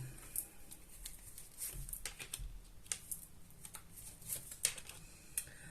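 Tarot cards being handled while a card is drawn from the deck: scattered soft taps and light rustles of the cards.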